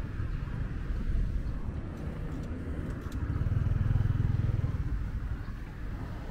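Street traffic: a motor vehicle's engine passes close by, swelling to its loudest a little past the middle and then fading, over a steady low traffic rumble.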